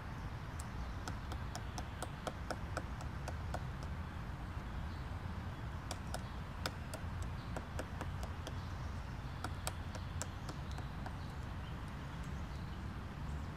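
Black woodpecker chiselling into a tree trunk: separate sharp knocks of its bill on the wood, coming in irregular runs of several blows with pauses between, not a fast drumming roll.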